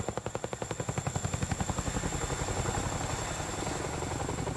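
Boeing CH-47F Chinook's tandem rotors beating in a rapid, even rhythm as the helicopter flies low. The beat is sharpest at first and evens into a steadier drone in the second half.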